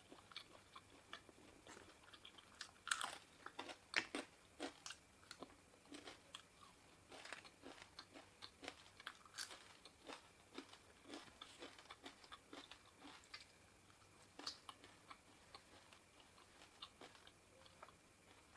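Close-up sound of a person chewing and eating, with many short, wet mouth clicks and crunches at an irregular pace. A few louder ones come about three and four seconds in.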